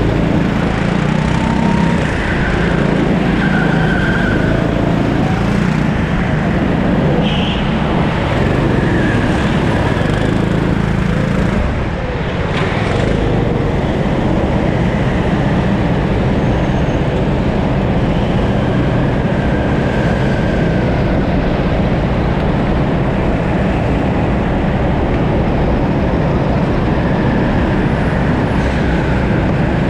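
Rimo 13 hp rental kart's engine running, with a brief drop in level about twelve seconds in.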